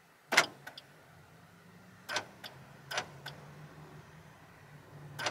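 Four sharp knocks at uneven intervals, each followed by a fainter second click, over a low steady hum that sets in with the first knock.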